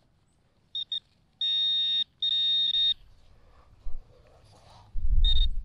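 Metal detector beeping on a metal target with a steady high electronic tone. Two short chirps come just before a second in, then two longer tones of about half a second each, and another short beep near the end. A brief low rumble comes just before that last beep.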